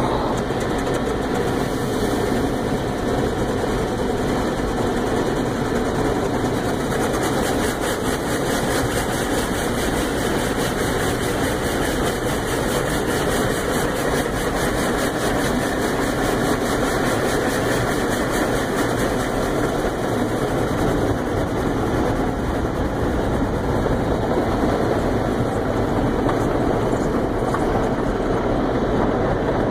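Automatic car wash equipment running, heard from inside the car's cabin: a loud, steady rushing noise.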